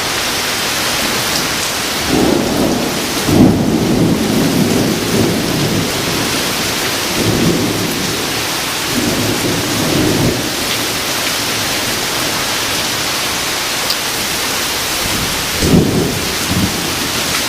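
Heavy thunderstorm rain pouring steadily, with thunder rumbling a couple of seconds in and twice more midway, and a sharper, louder thunder crack near the end.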